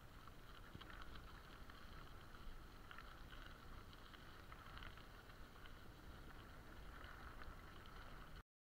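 Faint, steady rolling noise of a bicycle on a dirt-and-gravel track, with light wind rumble and scattered small ticks. It cuts off abruptly shortly before the end.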